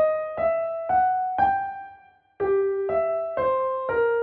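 Piano playing single notes of a six-note scale derived from the 6-Z49 hexachord. A rising run ends on a held top note, and after a brief pause a second melodic form of the same pitches begins, about two notes a second.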